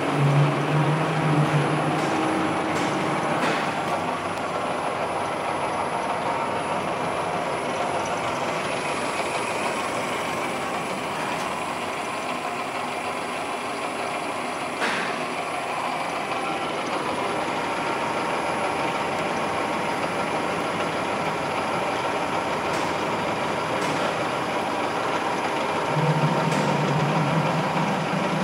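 Fryer MB-15 CNC vertical mill running a program, a steady mechanical running noise. A low motor whine stops about two seconds in, comes back near the end and starts to rise in pitch as the machine drives an axis.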